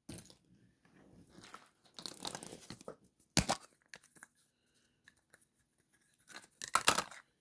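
Foil wrapper of a surprise egg being torn off and crinkled, in scattered rustling bursts. There is one sharp snap about three and a half seconds in and more crackling near the end.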